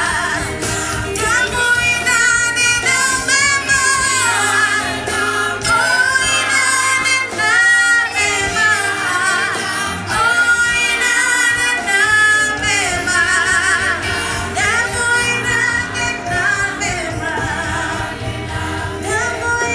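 Gospel worship team singing together with band accompaniment, women's voices leading, the sung lines wavering with vibrato.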